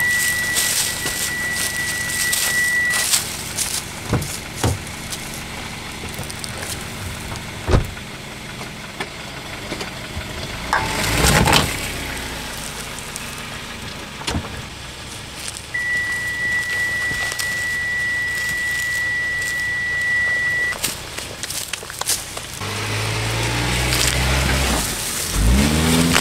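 A car driving slowly over rough ground, with scattered knocks and jolts. A steady high electronic tone sounds twice, once at the start for a few seconds and again for about five seconds in the middle.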